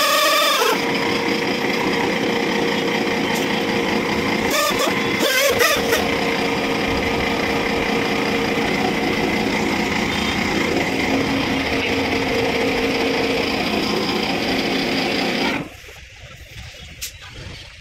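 Handheld pneumatic buffer running steadily with a high whine and hiss as it roughens the inside of a tubeless car tyre around the puncture. Its sound wavers briefly about five seconds in, then it cuts off abruptly near the end.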